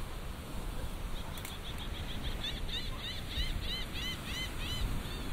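A bird calling a rapid run of short, repeated chirps, about five a second, starting about a second in and growing louder, over a steady low rush of surf and wind.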